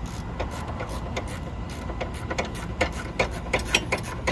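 Irregular metal clicks and clinks as the 17 mm nut is worked off a Ford Focus front sway-bar end link, over a steady low background noise.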